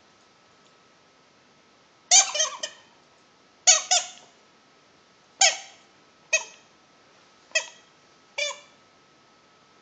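Rubber squeaky toy squeaking as a boxer dog bites down on it: about six short squeaks, some in quick pairs, starting about two seconds in.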